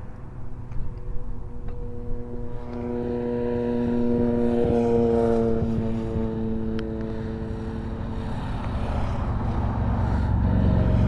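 A passing engine: a steady droning hum that swells over a few seconds and then fades away, over a low outdoor rumble. Near the end a second engine grows louder as it approaches.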